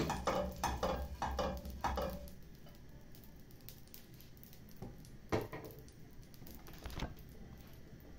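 Pastry brush swept quickly back and forth over an oiled, heated non-stick frying pan, a rapid run of short scraping strokes that stops about two seconds in. Later come two light knocks.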